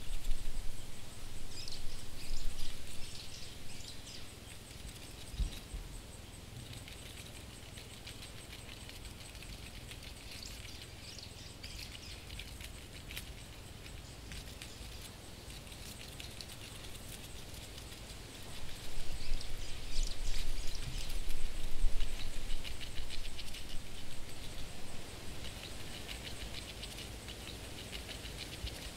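Fast, fine pattering and skittering of a cockroach's legs scurrying over a surface, coming in bouts: loudest at the start and again about twenty seconds in, with a quieter stretch between.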